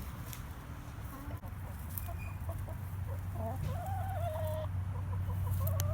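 Chickens calling in a series of drawn-out, wavering notes that begin about two seconds in, over a low steady hum.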